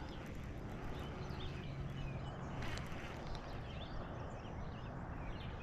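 Several small birds chirping and calling in short high notes, over a steady low outdoor hiss.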